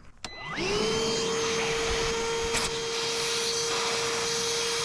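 Milwaukee wet/dry shop vacuum switched on with a click, its motor whining up to speed in about half a second and then running steadily. It is pulling a vacuum on a truck's fuel tank to hold the fuel in while a fitting is unscrewed.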